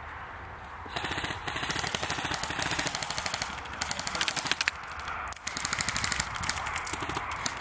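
Airsoft gun firing on full auto: a long run of rapid shots starting about a second in, with a short break a little past halfway before the firing resumes.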